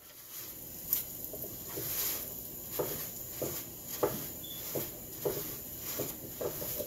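Paratha frying in oil in a hot pan, sizzling steadily, while a folded cloth presses and pats it down in a run of soft regular pats, roughly one every half second or so.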